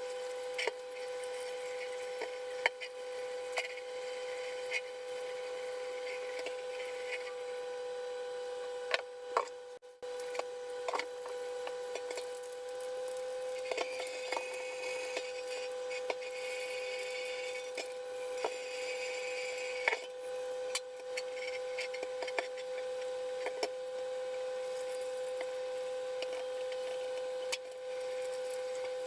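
Tools and metal parts being handled on a workbench: scattered sharp clicks and knocks over a steady high-pitched hum.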